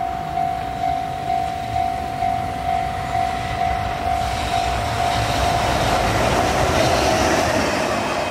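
A level-crossing alarm rings a steady single-pitched tone a little over twice a second. Over it, a JR Freight EH500 electric locomotive and its container wagons approach and pass close by, the rumble and wheel-on-rail noise rising from about four seconds in and loudest near the end.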